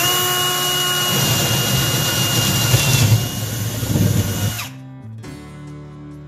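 Ryobi cordless drill boring a hole through the wooden panel of a kitchen cabinet, its motor whining steadily at speed, then stopping about four and a half seconds in.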